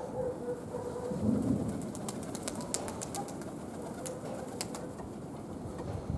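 Domestic pigeons cooing, with one low coo about a second in, over a steady rush of strong wind. A run of light clicks follows between two and five seconds in.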